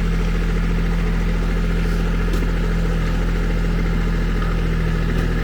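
Diesel engine of a Kubota SSV75 skid steer with a BH70 backhoe attachment, running steadily at a constant speed.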